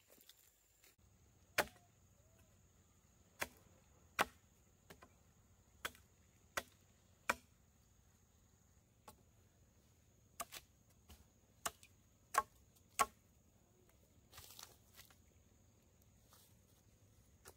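Chopping at a wooden post with a blade: about a dozen sharp, irregular strikes, most of them in the first two thirds.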